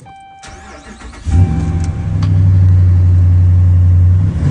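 Car engine started about a second in, then running loud and deep through a newly installed Flowmaster exhaust.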